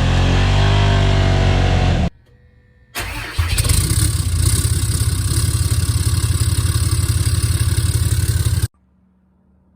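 A vehicle engine starting and running loudly for about five seconds, then cutting off abruptly. It is preceded by a couple of seconds of music.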